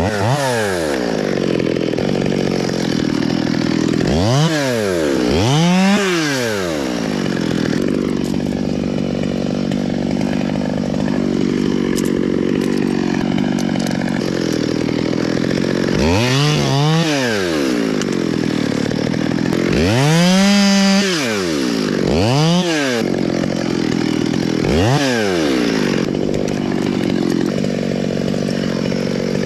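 Chainsaw running at idle and being revved up and let back down about eight times, each rev a rise and fall in pitch lasting about a second.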